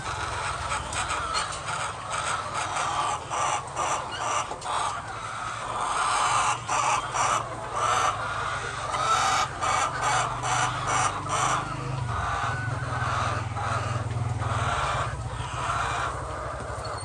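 Many chickens clucking and squawking, short calls thick and overlapping, over a steady low hum that swells for a few seconds past the middle.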